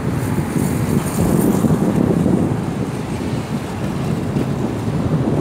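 Wind rumbling on the microphone over an electric RC mono boat running across the water, its faint high whine and spray clearest in the first second or two.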